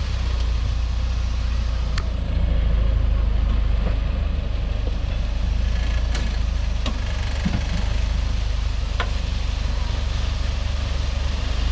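Four-wheel-drive vehicle's engine running steadily at low revs while crawling over rocks, with a few sharp clicks and knocks.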